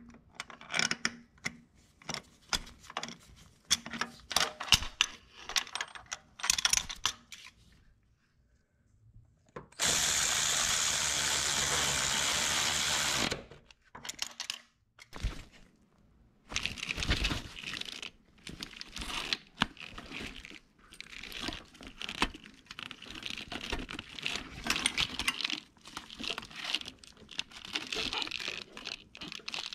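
Ratchet on a long socket extension working bolts, a run of quick clicks and metal taps. A power tool runs steadily for about three and a half seconds near the middle.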